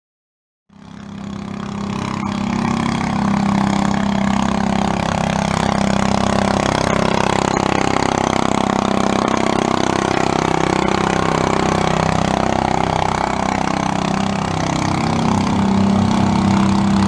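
Garden tractor engine running steadily under load while pulling a weight sled. The sound fades in within the first second or two.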